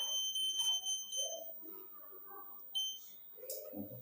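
Electronic alarm buzzer of a homemade earthquake-detector model sounding a steady high-pitched tone that cuts off about a second and a half in, then gives one short beep near the end. It is set off when the model's hanging thread is moved, as by shaking.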